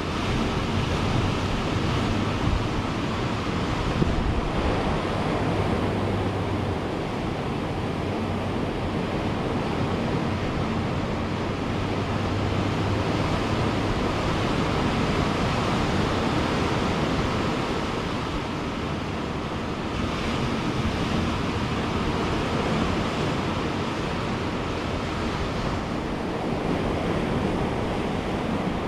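Ocean waves breaking and washing on a beach in a steady, continuous rush of surf, swelling and easing gently, with some wind on the microphone.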